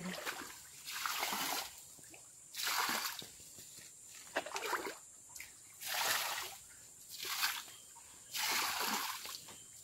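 Muddy shallow water splashing and sloshing as men wade and work their hands through it to catch fish. About six splashes, a second or two apart.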